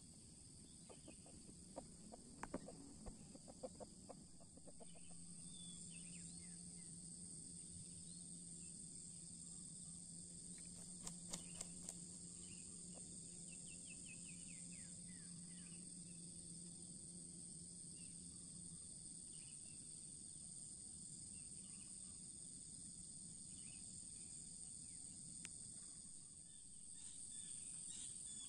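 Faint, steady high-pitched insect chorus of crickets, with a few soft clicks early on and again about eleven seconds in, and a few faint chirps. A low steady hum runs underneath from about five seconds in for some fifteen seconds.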